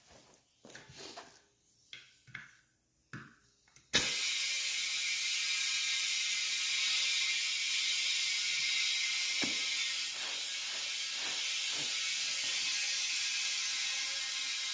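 Compressed air from an air compressor hose hissing steadily into a knobby three-wheeler tire to seat the bead, starting suddenly about four seconds in after a few light clicks of handling. A sharp click comes partway through the filling.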